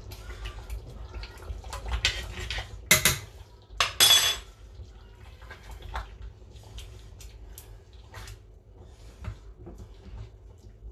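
Wooden spoon stirring a thick quinoa stew in a stainless-steel pot, knocking and scraping against the pot's sides and bottom as a string of small clicks, with a few louder clatters around two to four seconds in.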